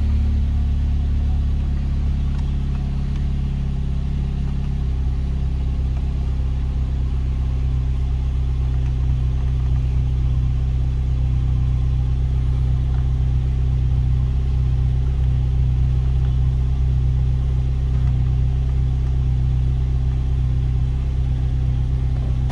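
Turbocharged Chevrolet Cobalt SS four-cylinder engine idling steadily, heard from inside the cabin, with its tone shifting slightly about five seconds in. The steady idle is drawing intake-manifold vacuum of about 19.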